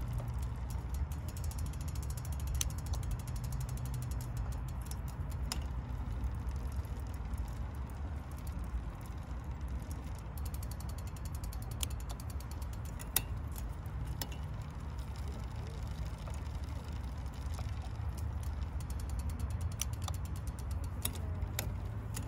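Bicycle chain running over an 11-speed 11–46t cassette through a 10-speed Shimano ZEE rear derailleur, with a steady fine ticking and a few sharper clicks as it shifts across the cogs. A low rumble runs underneath.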